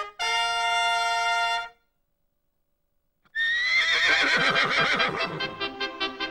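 A trumpet fanfare ends on a held chord that cuts off about a second and a half in. After a second and a half of silence, a loud, busy sound starts with a rising high tone.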